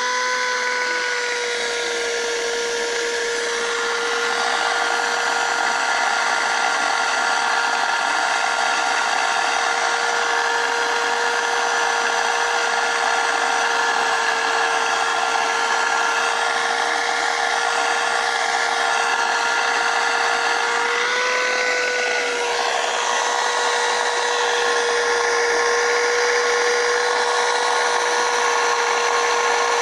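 Dirt Devil Vibe corded stick vacuum running, its motor giving a steady high whine over the rush of air. About two-thirds of the way through, the pitch steps up slightly and the airflow noise changes.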